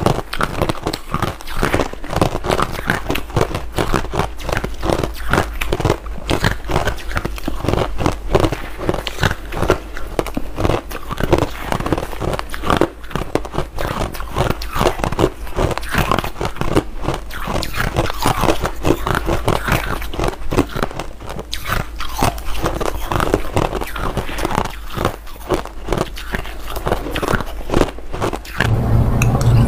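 Crushed ice being bitten and chewed close to the microphone: a dense, continuous run of sharp, irregular crunches.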